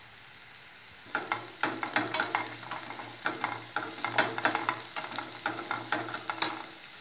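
Wooden spatula stirring and scraping in a stainless-steel kadai of shallots and curry leaves frying in oil: a quick run of scrapes and knocks over a steady sizzle, starting about a second in and easing off near the end.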